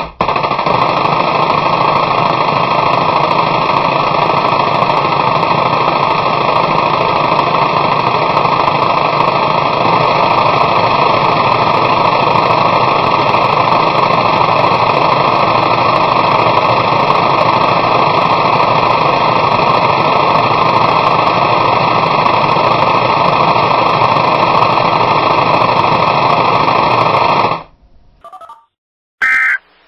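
Loud, steady rushing noise with no rhythm or pitch, cutting off suddenly near the end.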